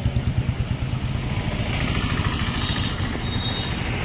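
Street traffic with a small vehicle engine running close by. Its rapid low exhaust pulses fade over the first couple of seconds into steady road noise.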